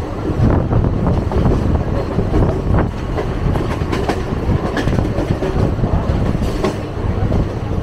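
A passenger train running along the rails, heard from on board: a steady rumble with scattered sharp clicks of the wheels passing over rail joints.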